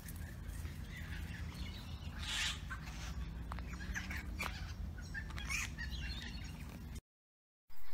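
Birds chirping here and there over a steady low rumble; the sound drops out for a moment near the end.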